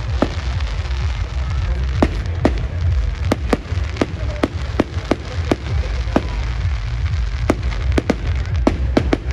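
Aerial fireworks going off in a rapid barrage: sharp bangs at an uneven pace of about two a second, over a continuous crackle and a low rumble.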